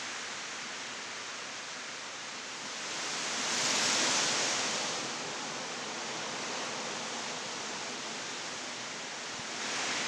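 Storm wind and heavy rain rushing steadily through the trees, with a gust swelling about three to five seconds in and easing off again.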